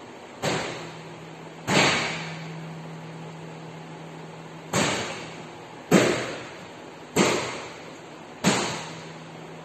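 Cast-iron dumbbells knocking against a steel barbell racked in a squat rack, six knocks about one per rep, with the bar ringing briefly after some of them.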